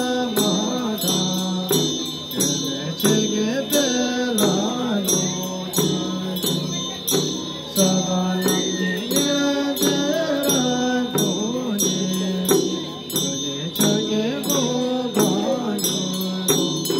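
Tibetan Buddhist ritual chanting: voices singing a melodic chant over the steady rhythmic rattle of large Tibetan hand drums (damaru) and the ringing of hand bells (drilbu).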